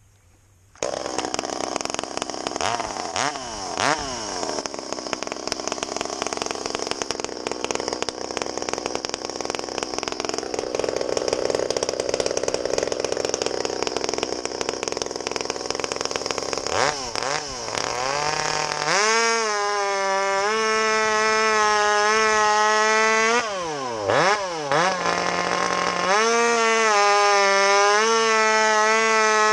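Stihl MS 200T two-stroke top-handle chainsaw, fitted with a homemade exhaust pipe in place of the muffler, starting up about a second in and blipping its throttle twice. It then revs up and runs at full throttle cutting through a log, eases off briefly about two thirds of the way through, and goes back into the cut. The owner finds it sounds faster and more powerful in the cut.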